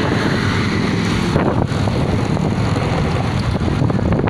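Wind rushing over a phone microphone on a moving motorcycle, with the motorcycle's engine and road noise underneath. The hiss turns duller about a second and a half in.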